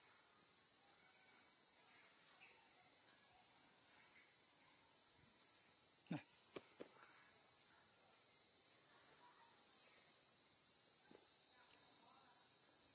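Steady high-pitched chorus of insects buzzing outdoors, with three sharp clicks close together about six seconds in.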